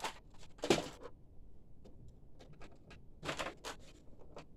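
Handling clicks and light knocks as a screw and small parts are picked up and handled, with a sharp knock about a second in and a short cluster of clicks near the end.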